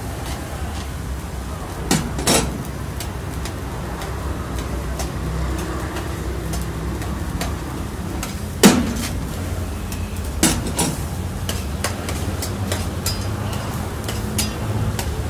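Long metal spatula clanking and scraping against a steel karahi while chicken in its gravy is stirred, with a handful of sharp metal knocks, the loudest a little past halfway. A steady low rumble runs underneath.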